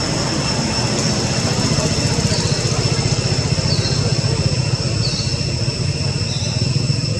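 A steady low mechanical rumble, like a motor running, under a constant high-pitched insect drone, with about five short falling chirps spaced a second or so apart.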